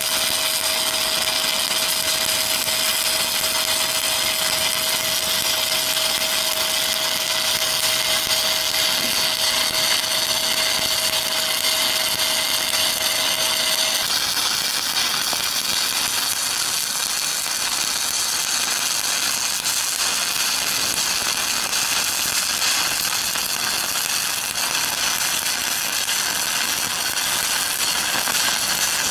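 Stick-welding arc crackling steadily as a 7018 electrode lays a cap-pass stringer bead on a horizontal (2G) groove weld. A faint steady tone runs under the crackle and stops about halfway through.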